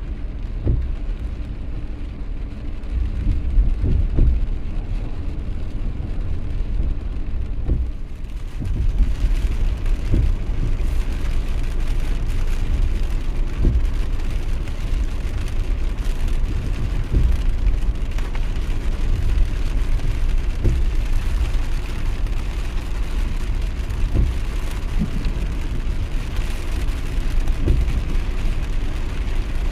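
Rain falling, with a steady low rumble underneath; the rain's hiss grows louder and brighter about a third of the way in.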